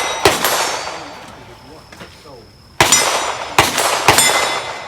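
Four rimfire pistol shots, each met by a steel target plate ringing out with a long, fading clang: one shot near the start, then three in quick succession about three to four seconds in.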